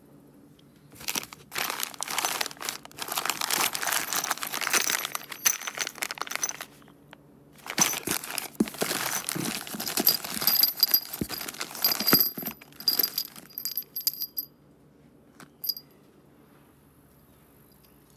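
Plastic parts bags crinkling and rustling, with small knocks, as a hand rummages through a cardboard box of bagged replacement parts. It comes in two long bouts with a short pause between them, then a single small click.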